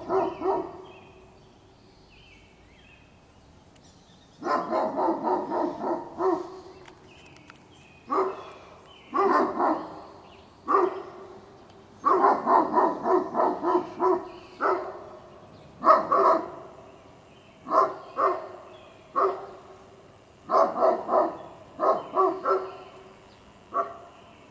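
Great Pyrenees dogs barking in volleys of rapid barks, some runs a few barks long and some a single bark, with short pauses between them.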